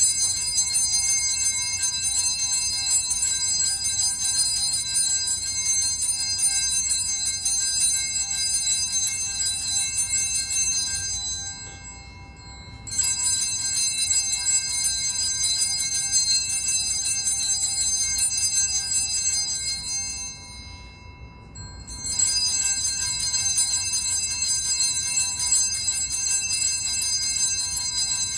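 Altar bells rung continuously during the Benediction blessing with the Blessed Sacrament, in three long bouts broken by short pauses about 12 and 20 seconds in.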